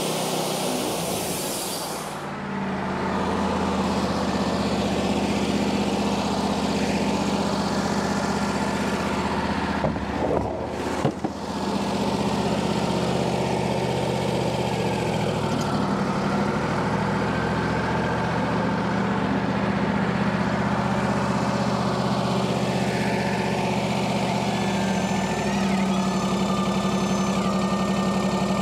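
Wood-Mizer LT40 portable band sawmill running steadily, its sawhead working along a treated utility pole. There is a brief clatter of knocks about ten seconds in, and the engine note steps up near the end.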